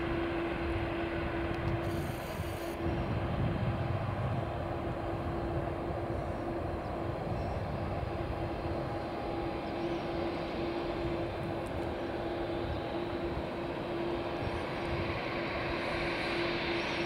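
Boeing 787-8 Dreamliner's jet engines running at low taxi thrust: a steady drone with a steady whine held at one pitch.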